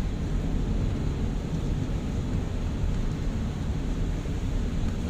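Steady road noise of a moving car heard from inside the cabin: a low rumble of tyres and engine on a wet toll road.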